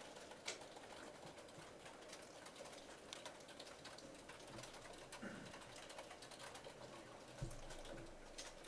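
Near silence: faint room tone with a few soft clicks, one about half a second in and another near the end.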